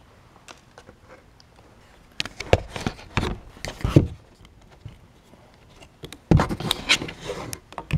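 Handling noise as alligator-clip leads are connected: two bouts of irregular scraping, rustling and knocking, about two seconds in and again about six seconds in.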